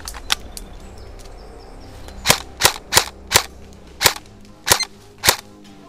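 Airsoft rifle firing single shots: two fainter cracks at the start, then seven loud sharp shots in quick succession from about two seconds in, a third to two-thirds of a second apart.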